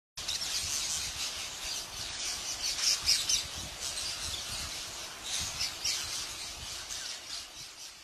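A large flock of parakeets calling all at once: a dense, continuous chatter of shrill, overlapping squawks, with louder individual calls standing out now and then.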